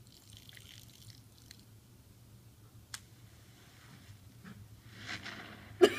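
Cartoon sound effects from a tablet's speaker: faint small sounds and a single sharp click about three seconds in, then a hiss that swells near the end and breaks into a sudden loud burst as a lighter-fluid-soaked barbecue grill goes up in flames.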